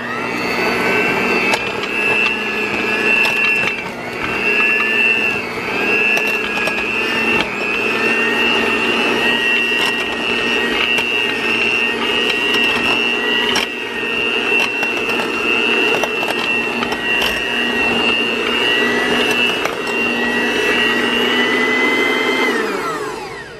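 Electric hand mixer running steadily with its beaters shredding cooked chicken breasts, a whine whose pitch dips briefly a few times under load, with a few light clicks. Near the end the motor winds down and stops.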